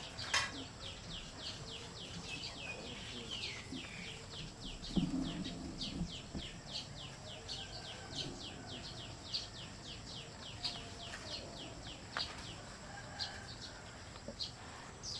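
Outdoor wildlife ambience: a continuous run of short, high, downward-sweeping chirps, about three or four a second, over a steady high whine. A sharp click sounds just after the start, and a short low call comes about five seconds in.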